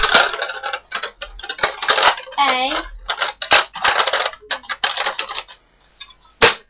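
Plastic clicking and rattling from a Nerf Vulcan toy blaster being handled, with a sharp loud click near the end. A drawn-out spoken "a..." comes about two and a half seconds in.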